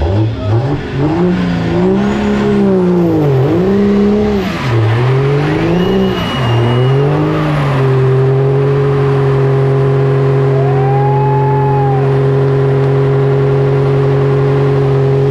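Dodge Ram pickup's engine revving up and down in several surges during a burnout, then held at steady high revs for the second half while the rear tires spin.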